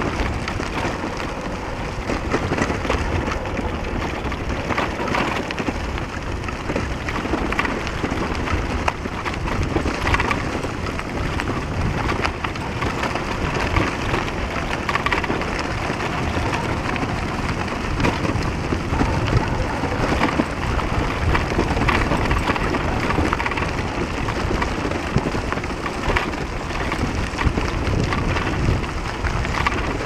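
Continuous noise of riding a bicycle: tyres rumbling and crackling over the road surface, with wind buffeting the microphone.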